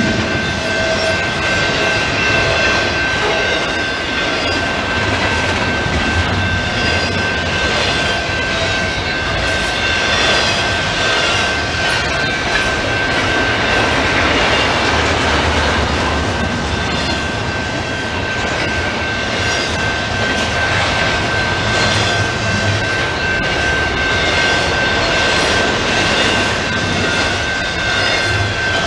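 Canadian Pacific double-stack intermodal freight train rolling past, its container cars' wheels making a steady rumble and clatter on the rails. A thin, steady high-pitched whine runs through it.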